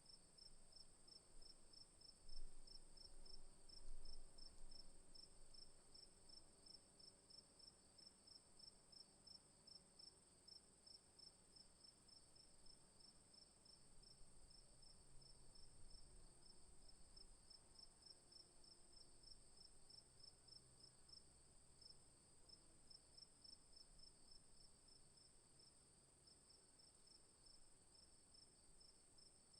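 Crickets chirping: a steady high trill together with a regular train of rapid pulsed chirps, faint and continuous. Two brief low thumps about two and four seconds in.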